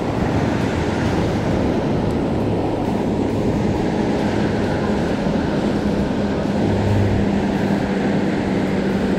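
Ocean surf breaking and washing over a rock ledge, mixed with wind buffeting the microphone: a loud, steady, dense rush.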